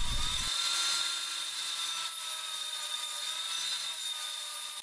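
Table saw running and ripping a wooden fence board lengthwise against the rip fence: a steady high whine over a hiss of cutting.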